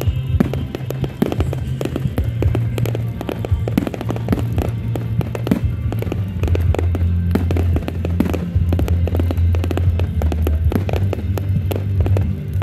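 Fireworks going off in rapid succession, a dense stream of sharp pops, crackles and bangs, over music with a deep bass line that changes note every few seconds.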